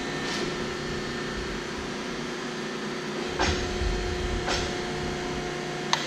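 Baykal APH 3710-220 hydraulic press brake running at rest: a steady hum from its hydraulic pump, with a single steady tone. There are knocks about three and a half and four and a half seconds in, and a sharp click near the end.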